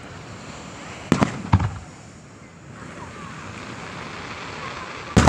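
Fireworks bursting: a quick cluster of three bangs about a second in, then a single louder bang near the end. Under them runs a steady hiss of ocean surf.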